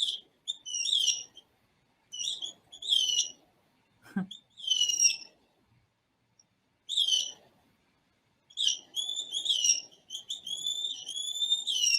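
Analog electronic birdsong circuit (five astable multivibrators driving a modified Hartley oscillator) playing synthesized Blue Jay–style chirps through a speaker: short gliding high chirps in bursts with pauses between. In the second half the phrases come faster and run longer, with held whistled tones, as turning the multivibrators' base-resistor knobs changes the song pattern.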